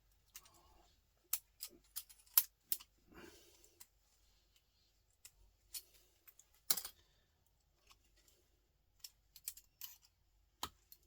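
Irregular sharp clicks and snaps of a hand tool working an electronic component clamped in a vise, breaking it apart to free its gold-plated pins. Two snaps, about 2.5 s in and near 7 s, are the loudest.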